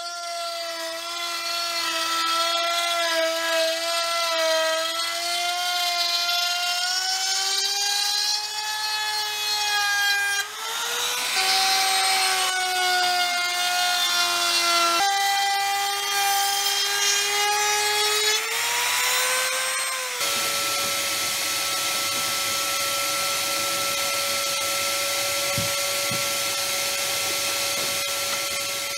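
Compact trim router running at speed as its bit cuts a groove along a wooden board's edge, its whine wavering and dipping in pitch as the load changes, with a rougher, noisier stretch in the middle. About two-thirds of the way through, the router sound stops and a vacuum takes over, running with a steady hum and hiss as it sucks up sawdust.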